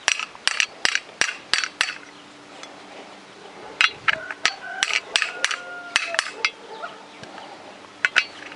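Hammer tapping on a 22 mm socket used as a drift, driving a bearing into the fan hub of a walk-behind tractor: quick metallic blows with a ringing clink, about three a second, in three runs with short pauses between.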